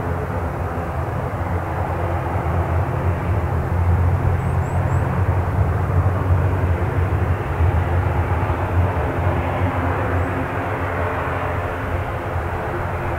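ATR 42 twin-turboprop airliner's engines and propellers running at taxi power as it taxis. A steady low drone that swells for a few seconds in the middle as the aircraft draws nearer, then eases a little.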